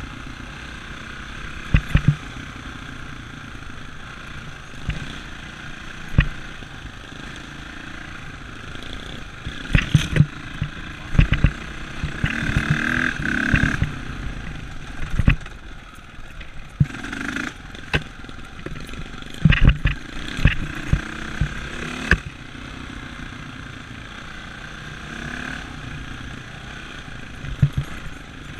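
Dirt bike engine running steadily while riding a rough trail, with sharp knocks and thumps scattered through, loudest in clusters about ten seconds in and again near twenty seconds.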